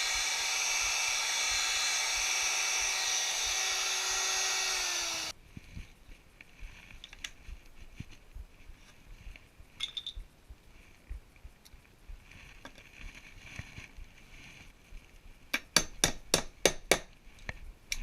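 Handheld router running steadily for about five seconds as it routes out an old strike mortise in a door jamb, then cutting off suddenly. After that, light scattered clicks and, near the end, a quick run of about eight sharp clicks.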